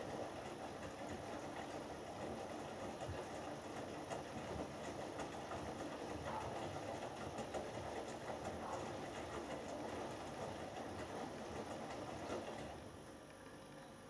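Hoover Dynamic Next front-loading washing machine's drum tumbling a wet load in the main wash of a cotton 60 °C cycle, with water and laundry sloshing steadily. The tumbling stops about a second before the end, as the drum comes to rest between turns.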